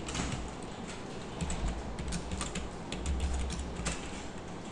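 Computer keyboard being typed on: an irregular run of quick key clicks.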